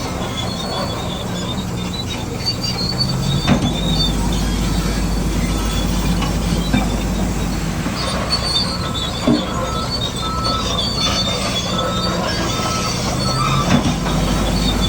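Bulldozer working: a diesel engine running steadily under a high metallic squeal and occasional clanks from its steel crawler tracks.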